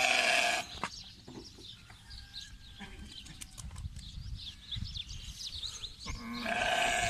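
Young sheep bleating twice: a loud bleat right at the start, about half a second long, and a longer one near the end.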